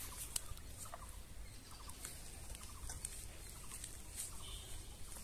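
Faint clucking of domestic fowl: a few short calls scattered over a quiet background.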